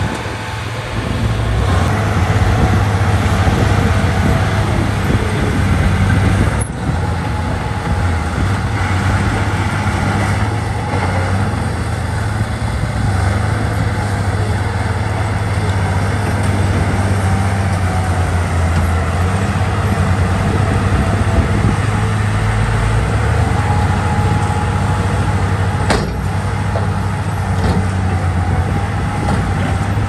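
Bulldozer's diesel engine running steadily at work, a continuous low drone, with brief breaks about 7 and 26 seconds in.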